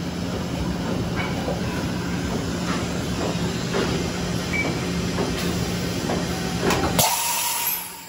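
Mazak VCS-530C vertical machining center making an automatic tool change: a steady hum and hiss, with clunks from the tool changer every second or so. A louder hissing burst near the end is followed by the noise dropping away.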